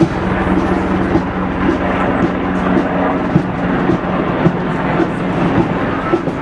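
Coast Guard MH-60 Jayhawk helicopter flying past low overhead: steady rotor chop over a constant engine hum.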